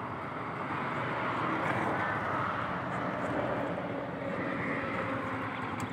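Steady rumble of road traffic, swelling a little as a vehicle goes by.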